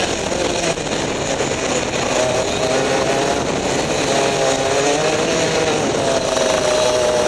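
Rotax Max 125cc two-stroke kart engine running hard, heard from onboard the kart. Its pitch dips and rises with the throttle through the corners.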